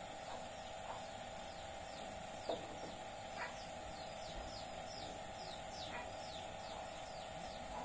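Birds chirping: a run of short, falling high chirps, two or three a second, with a few short louder calls, over a steady hum.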